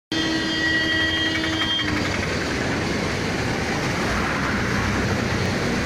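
Heavy rain falling in a steady loud hiss. For the first two seconds a steady tone of several pitches sounds over it, then stops.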